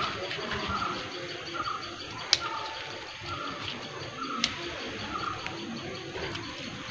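A bird repeating a short call note about once a second, with two sharp clicks, one a little over two seconds in and one about four and a half seconds in.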